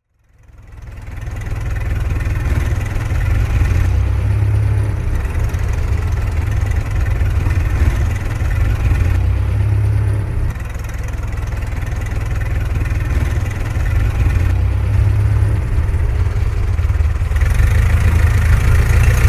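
Vintage car engine running with a steady low rumble. It fades in over the first second or two, then shifts slightly in level a few times.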